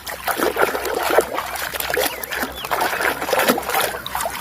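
Water splashing and trickling as a muddy toy is washed by hand, with irregular small splashes and sloshes.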